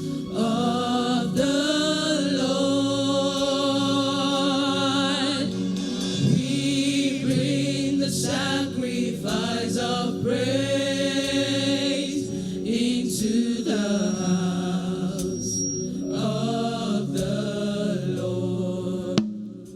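Worship singing over instrumental accompaniment: sung lines with long held, wavering notes over sustained low chords. The music drops away near the end.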